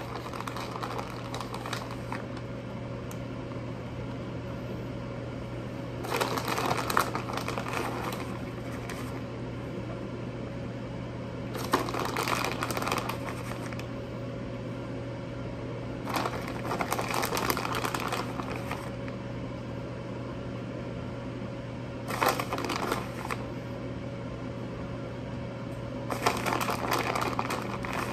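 Shredded cheese being grabbed and sprinkled onto a pizza, heard as five rustling spells a few seconds apart over a steady low hum.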